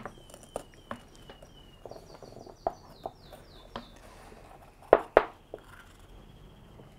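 A small songbird singing: runs of quick descending whistled notes, then a steady high trill in the second half. Sharp knocks and clatter of kitchen utensils come through it, the two loudest close together about five seconds in.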